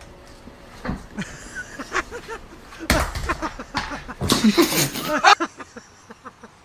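A plastic laundry basket knocking and clattering on a hard floor as it is tipped and tumbles with a cat inside, with two sharp knocks among excited human voices that grow loudest shortly before the end.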